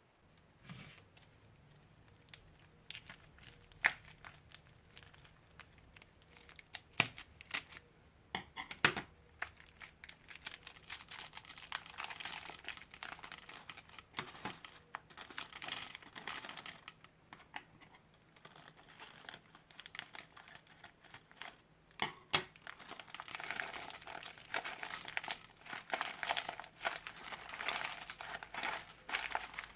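Crunchy slime being squeezed and pressed by hand, crackling and crinkling. At first there are scattered sharp pops. From about ten seconds in the crackling becomes dense and continuous, and it is busiest near the end.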